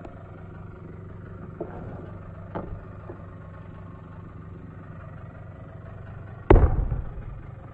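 An engine idles steadily. About six and a half seconds in comes a loud, heavy thud: a cut section of tree trunk hitting the ground.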